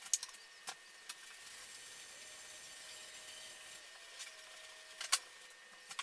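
Handling noise from a paper-wrapped cardboard tube: soft paper rustling and a few sharp light clicks and taps on a wooden tabletop, the loudest tap about five seconds in as the tube is set down.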